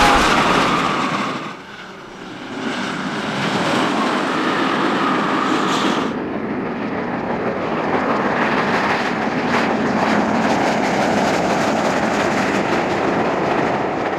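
OO gauge model of the LNER A4 Mallard running at speed: a steady rushing train noise that drops away briefly about two seconds in, then swells again and holds.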